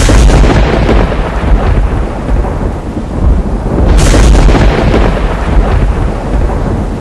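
Thunder-and-rain sound effect: a sudden loud thunderclap over steady heavy rain, with a second clap about four seconds in.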